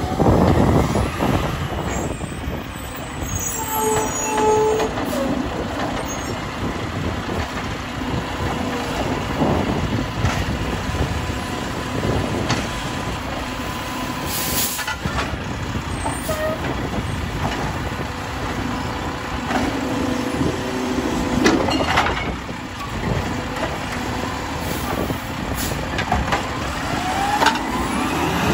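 Mack LR Labrie Automizer automated side-loader garbage truck at work: the engine runs and revs while the hydraulic arm handles the carts, with air brake hisses as the truck stops and pulls up to the next cart.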